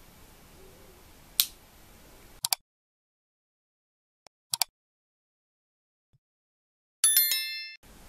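A click over faint room tone, then dead silence broken by two quick mouse-click sound effects, and a bright bell-like notification chime near the end, the sound effects of a subscribe-button animation.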